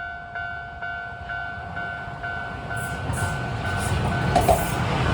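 Japanese level-crossing bell ringing in a steady two-tone ding about twice a second. A Keio Inokashira Line train then approaches and the rumble of its wheels builds up over the bell, with rail-joint clacks near the end.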